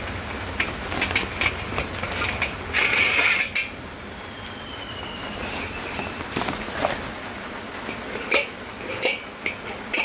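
Coleman Fire Disc stainless-steel fire pit clinking and clanking as it is pulled out of its fabric carry case, with the case rustling. Near the end come several sharp metal clanks as its wire legs are folded out.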